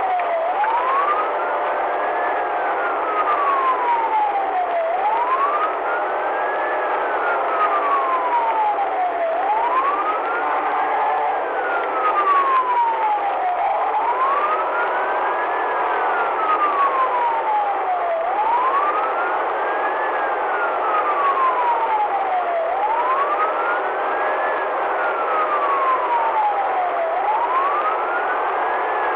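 Police car siren in wail mode, rising and falling slowly about once every four and a half seconds, seven rises in all, over steady engine and road noise at highway speed.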